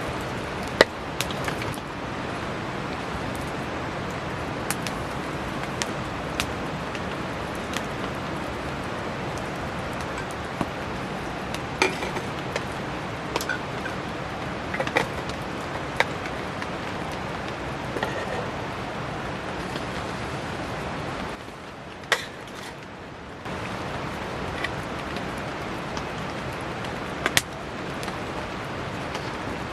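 Steady hiss of heavy rain with the scattered sharp pops and crackles of a wood campfire. The hiss drops briefly about two-thirds of the way through.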